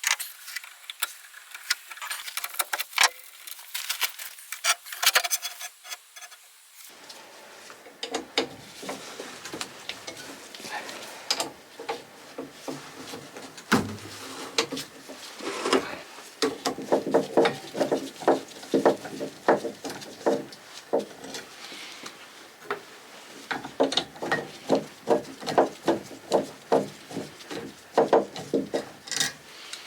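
Hand work on a small engine's parts: a run of clicks, taps and light scraping, sparse at first and busier after about seven seconds.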